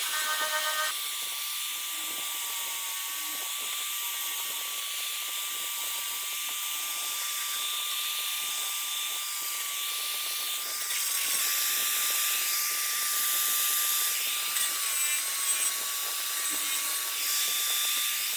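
A small power tool running steadily: a continuous high whine over a hiss, getting somewhat louder a little past halfway.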